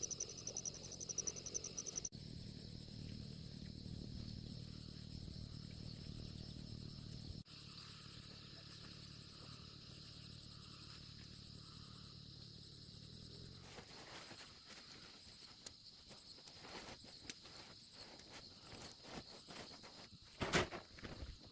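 Crickets chirping in fast pulsing trills over a low steady rumble. From about two-thirds of the way through, irregular rustles and crackles take over, the loudest a sharp burst near the end.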